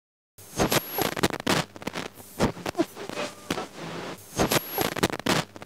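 Outro sound for the animated logo card: a rapid pattern of sharp clicks and knocks with short pitched blips and a few high tones. It starts about half a second in, and the same figure comes round again about four seconds later.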